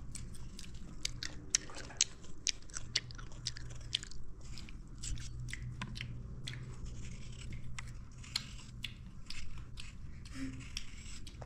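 Small knife cutting a raw peeled potato into sticks in the hand: a run of crisp, uneven cutting clicks, a few each second, as the blade snaps through the firm flesh.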